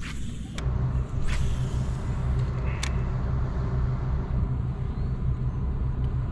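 Low, steady hum of a motor driving a fishing kayak, setting in about half a second in and holding even, with a few sharp clicks in the first three seconds.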